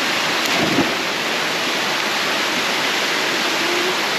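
Waterfall water rushing steadily into its pool, an even hiss, with a brief low knock a little under a second in.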